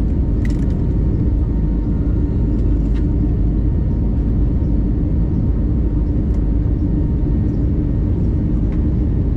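Airbus A320neo cabin noise during climb-out, heard from inside the cabin: a steady low rumble of engines and airflow with a constant hum running through it. A couple of faint clicks sound about half a second and three seconds in.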